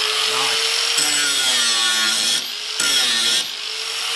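Einhell 600-watt budget angle grinder running free in the hand with no load, a steady high whine. The motor note dips and picks back up a couple of times.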